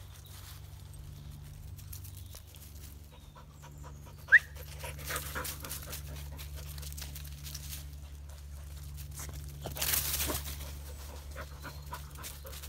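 Dogs panting as they trot up the path, with faint rhythmic patter from paws on dry leaves. A single short high squeak comes about four seconds in, and the panting gets louder and closer near the end.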